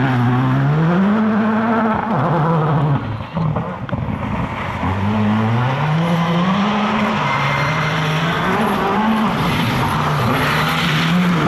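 Škoda Fabia R5 rally car's 1.6-litre turbocharged four-cylinder engine revving hard up and down as the car is driven round a tight coned course. The engine note rises, falls away briefly about three seconds in, then climbs again and holds high.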